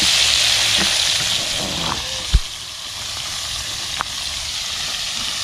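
Small fish sizzling in hot oil in a frying pan. The hiss fades over the first half, and there is one dull thump a little after two seconds in and a sharp click near four seconds.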